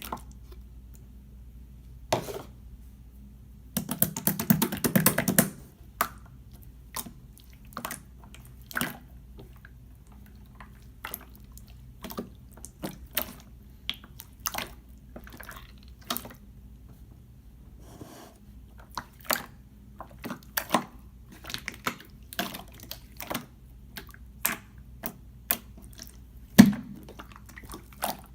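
Clear slime being squeezed and stretched by hand, giving many short wet clicks and pops, with a dense crackling run about four to five seconds in.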